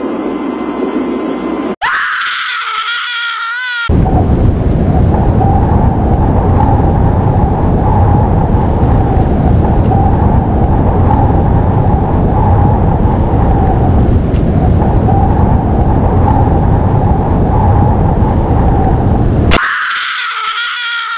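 A wavering, warbling tone about two seconds in gives way to a loud, steady rumbling roar accompanying the capsule's reentry. Near the end the roar cuts off and the warbling tone returns.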